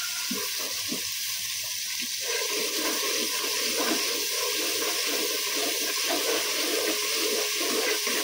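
Garlic-ginger paste sizzling in hot oil in a pan as it is fried, a steady crackling hiss.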